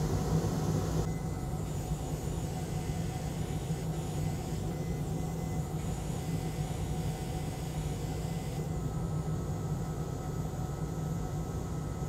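Steady whir and low hum of an electric fan on the electronics repair bench, with the upper hiss dropping away about a second in and again near the end.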